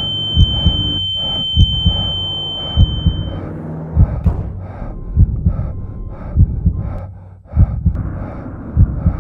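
Heartbeat sound effect on a film soundtrack: pairs of low thumps repeating about every 1.2 seconds over a steady droning bed. A steady high tone sounds with it and stops about three seconds in.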